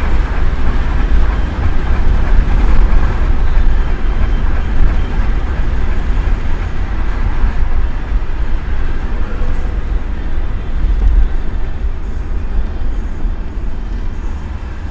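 Steady road and engine noise of a moving car, a deep, even rumble with a fainter hiss above it, easing off slightly near the end.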